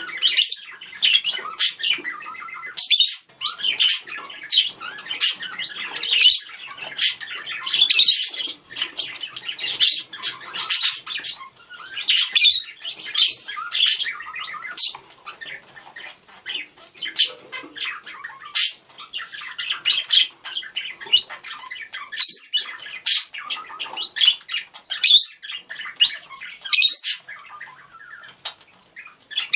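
Several budgerigars chattering and calling to one another: a dense, continuous run of warbles, chirps and sharp squawks.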